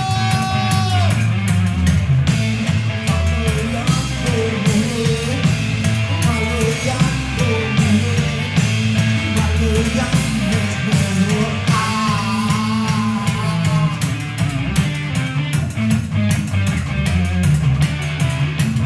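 Rock music mashup: a heavy, repeating low bass riff with electric guitar and regular drum hits, and a wavering melodic line over the top.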